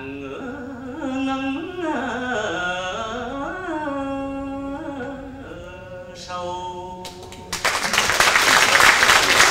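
A man singing a line of vọng cổ, the Southern Vietnamese cải lương song, with slides between notes and wavering held tones. About seven and a half seconds in the singing ends and the audience bursts into loud applause.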